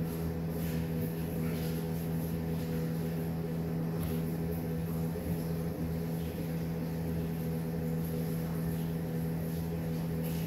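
Steady low hum over a faint background hiss, unchanging throughout.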